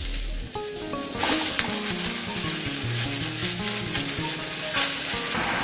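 Leafy greens (saag) sizzling as they fry in hot oil tempered with mustard seeds, green chilli and garlic, with stirring in the pan. Louder crackles come about a second in and again near the end.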